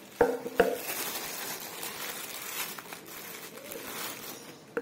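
Clear plastic wrapping bag crinkling and rustling as a figurine is pulled out of it by hand, with two sharp clicks in the first second.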